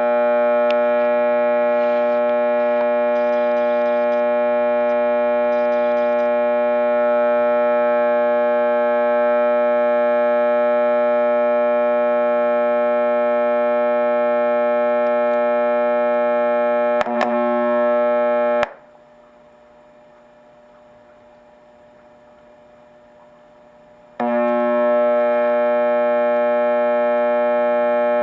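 Loud, steady mains hum from the Macdonald CE-100, a buzzy tone with many overtones. It wavers about 17 seconds in, cuts out near 19 seconds and comes back about 24 seconds in. The hum is the sign of a bad circuit-to-chassis ground connection, not of faulty capacitors.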